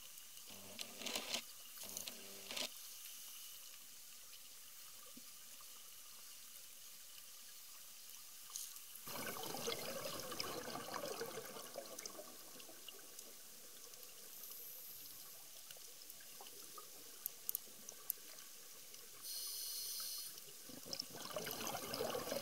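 Underwater ambience with a scuba diver's exhaled regulator bubbles rushing out in two bursts, about nine seconds in and again near the end, with a brief high hiss just before the second burst and scattered faint clicks.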